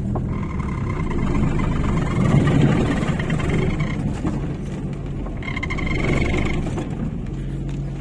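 Car engine running and tyre and road noise heard from inside the cabin while driving, swelling about two to three seconds in. A higher pulsing tone sounds over it twice, first for about three and a half seconds, then for about a second.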